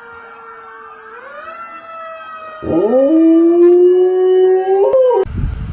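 A dog howling: a long, steady howl that bends up in pitch, then a much louder howl that swoops up and is held for about two seconds, rising slowly, and cuts off suddenly. Near the end comes a burst of low rumbling noise.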